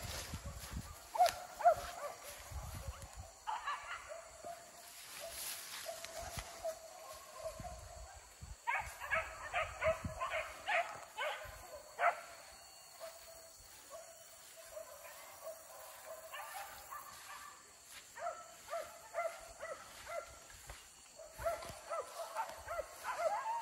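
Hunting dogs barking in repeated runs of quick, high yelping barks, with short lulls in between.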